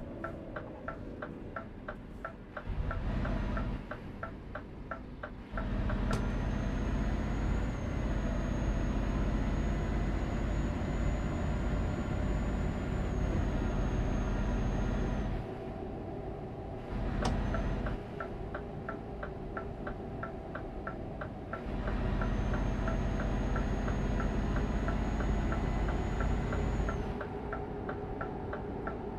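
A car's turn-signal indicator clicking in a steady, rapid rhythm inside the cabin, under engine and road noise. The clicking stops about five seconds in as the engine and road rumble grow louder. It starts again later, and the rumble eases and swells once more.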